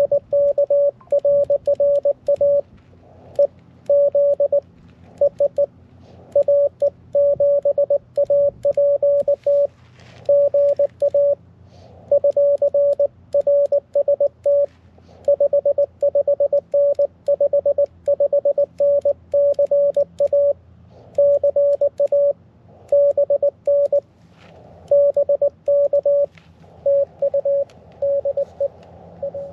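Morse code (CW) from a portable QRP ham radio on the 20-meter band: one steady mid-pitched tone keyed on and off in dots and dashes, sent in groups with short pauses between them.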